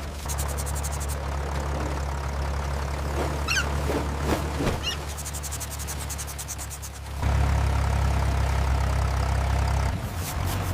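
Tractor engine running with a steady low hum, and a fast rattling clatter that comes and goes. A few short high squeaks about halfway through.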